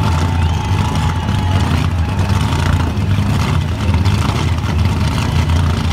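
Supercharged, methanol-fuelled Chev V8 in a Holden VF ute held at steady high revs through a burnout, with the rear tyres spinning and flames coming from the exhaust.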